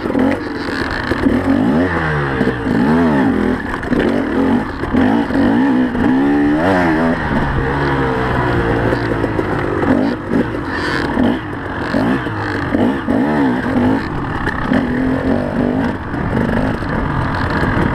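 KTM enduro dirt bike engine revving up and down over and over as the rider works the throttle and shifts on a fast trail, heard up close from on the bike.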